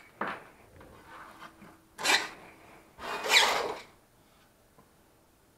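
Three short scraping rubs as the 3D-printed plastic BB-8 dome is moved by hand on the board. The third and loudest lasts almost a second.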